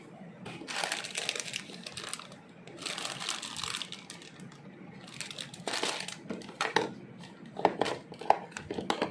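Plastic packaging crinkling and rustling in three bursts, followed by a run of sharp clicks near the end.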